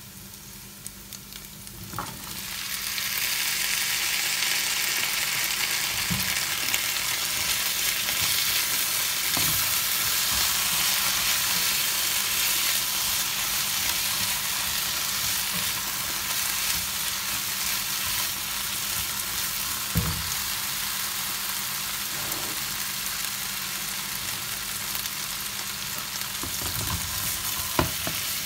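Diced potatoes and carrots frying in olive oil with sliced sausage in a ceramic-coated pan, the sizzle swelling sharply about two seconds in as the vegetables go into the hot oil, then steady. A silicone spatula stirring them knocks against the pan now and then.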